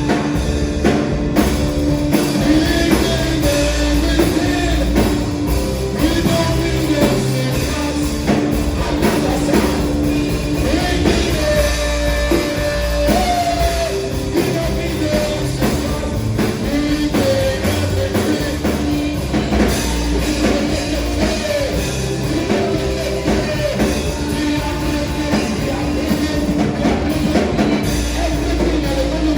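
Live band music with drums, bass and guitar, and voices singing over it.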